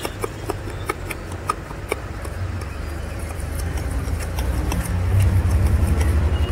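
A spoon clinking and scraping against a steel bowl while jhalmuri is tossed, in quick irregular clicks, over the low rumble of a vehicle engine that grows louder in the second half.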